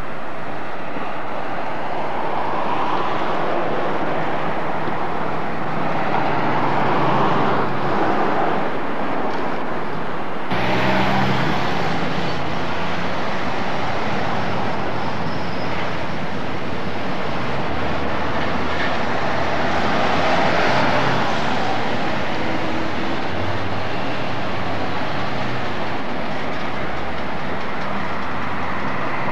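Street traffic: cars driving past one after another, each swelling and fading, with engine hum underneath. About ten seconds in, the sound changes suddenly at a cut in the recording.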